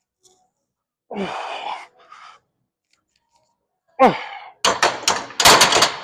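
Gym weights clanking: a quick run of sharp metal knocks in the last two seconds, loudest near the end. About a second in there is a short rising voice-like sound, and at about four seconds a brief falling groan.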